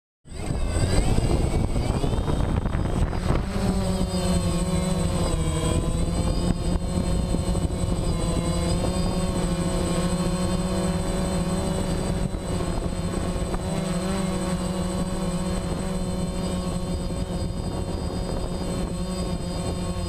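Remote control helicopter's motor and rotor heard close up through a camera strapped to the helicopter: a steady buzzing whine made of several pitches that waver slightly in flight. It cuts in suddenly at the very start.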